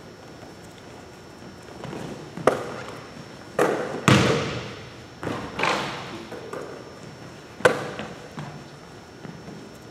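Irregular thuds and slaps echoing in a gym, about half a dozen over several seconds: a basketball player's body bumping a foam blocking pad and her hands meeting the ball. The biggest thud comes about four seconds in, a sharp slap near the end.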